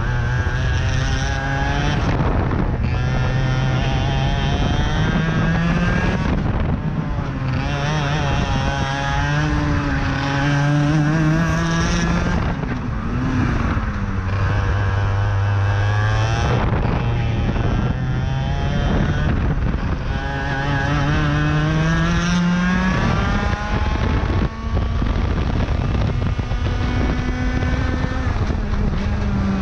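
IAME X30 125cc two-stroke kart engine at racing speed, heard from the driver's helmet; its pitch climbs on each straight and drops as the kart slows for the corners, over and over, ending with a long climb.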